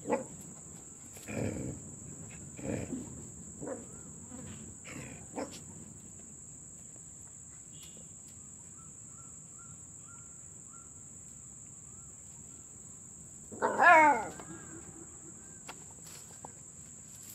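Crickets chirping steadily, with a few short soft noises in the first five seconds. About fourteen seconds in, a dog gives one brief, wavering whine-like call, the loudest sound here.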